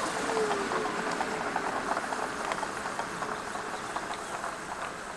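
Pipistrel Velis Electro's electric motor and propeller spinning down as the plane taxis past: a falling whine in the first second or so, then a fading hum with light ticking.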